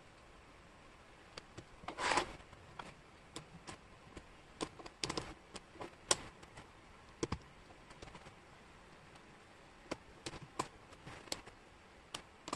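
Wooden jigsaw puzzle pieces clicking and tapping irregularly as they are picked up, set down and fitted by hand, with a short shuffling rattle of pieces about two seconds in and a quick run of taps around five seconds.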